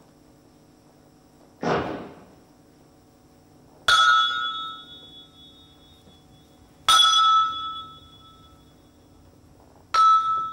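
A dull hit, then three sharp metal strikes about three seconds apart, each ringing out with a clear bell-like tone that fades over about a second: a hammer striking a hanging metal ring.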